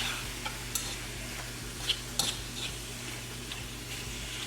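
Chicken pieces and peppers sizzling in a wok as the chicken browns, with a few sharp clicks of a utensil against the pan.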